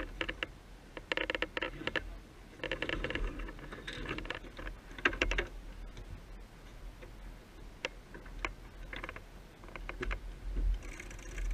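Sailboat winch ratcheting: bursts of rapid clicks from its pawls as lines are worked around it, five bursts in the first half, then a few single clicks. A low wind rumble sits underneath.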